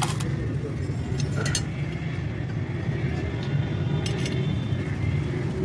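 Loose steel bolts and small metal engine parts clinking in a metal bowl as they are picked through by hand, a few sharp clinks, over a steady low background hum.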